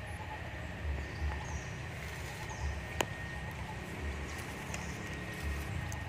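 Outdoor ambience: faint scattered chirps, a thin steady high tone and a low rumble that comes and goes, with one sharp click about three seconds in.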